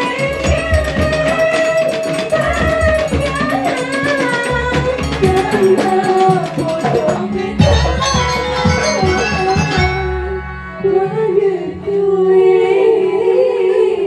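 Banyuwangi gamelan ensemble music: kendang hand drums and bronze gamelan metallophones playing under a gliding melody line. About ten seconds in the drumming drops back and the melody carries on more thinly.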